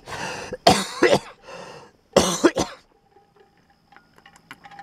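A man coughing, four coughs in about three seconds.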